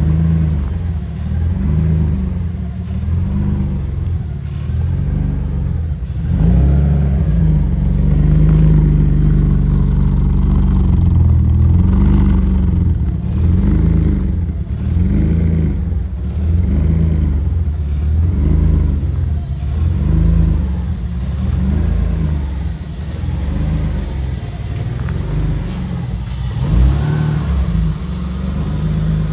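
Car engine running, its pitch rising and falling again and again.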